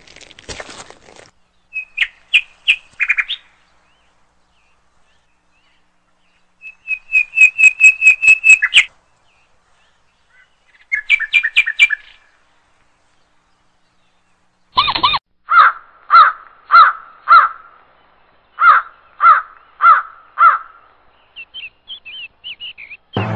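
Bird-like calls in separate bursts with silence between: short runs of quick, high chirps, then, about fifteen seconds in, a louder series of lower notes, about two a second, followed by a few faint high chirps.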